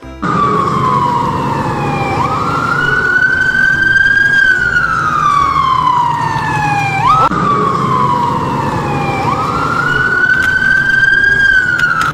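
Ambulance siren wailing: the pitch slides slowly down, jumps quickly back up and holds, repeating about every five seconds, with a low steady rumble beneath. It starts abruptly.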